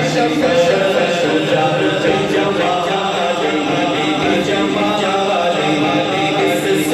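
A man chanting a devotional recitation unaccompanied into a microphone, in long held melodic lines that glide in pitch. Rhythmic hand claps join in near the end.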